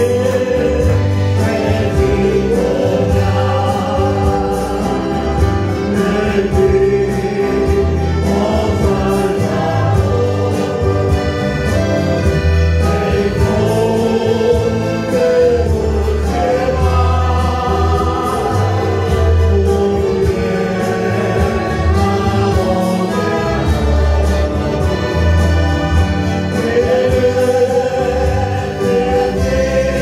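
Church ensemble of accordion, acoustic guitar, violins and saxophone playing a Christian song, with a choir singing.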